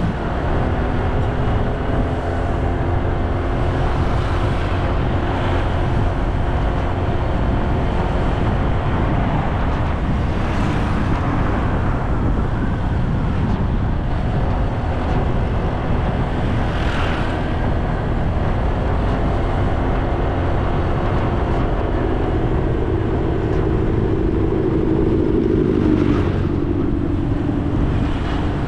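Engine of the vehicle carrying the camera, running steadily along a paved road under a constant rush of road noise. The engine note rises and grows louder near the end, and a few brief swells stand out along the way.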